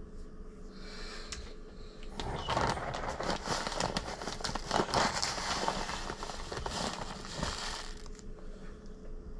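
Plastic bag of salt crinkling and crackling as it is handled. The dense crackle starts about two seconds in and fades near the end.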